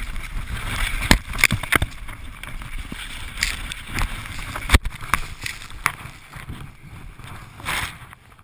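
Avalanche snow rushing continuously around a skier being carried down in the slide, with several sharp knocks and scrapes from skis and gear against the moving snow.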